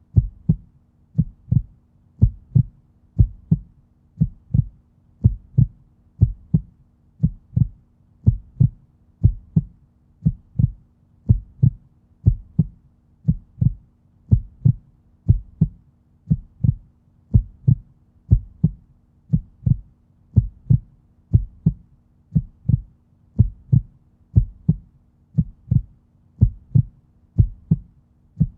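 Human heartbeat: a steady lub-dub rhythm of paired low beats, about one pair a second, over a faint steady hum.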